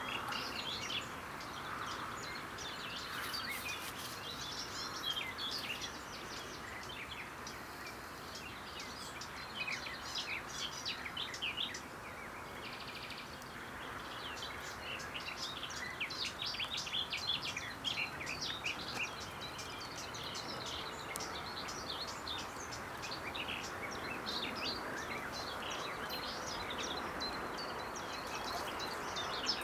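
Birds chirping and singing in quick, dense phrases over a steady background hiss.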